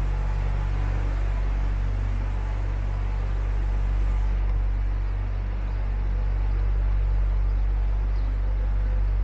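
A tourist boat's motor running with a steady low hum.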